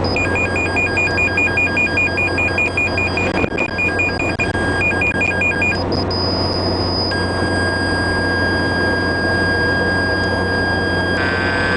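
Electronic beeping at about four beeps a second, broken by a short gap, that gives way about six seconds in to steady held electronic tones which shift near the end. A steady vehicle drone runs beneath it.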